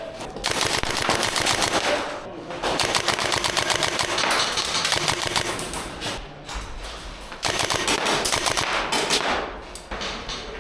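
Airsoft guns firing on full auto: several long strings of rapid shots, broken by short pauses.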